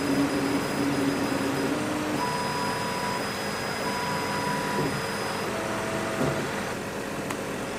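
Desktop laser cutter cutting a Mylar solder-paste stencil: a steady whirring of the running machine, with short steady whines at several pitches that start and stop as the cutting head moves from cut to cut.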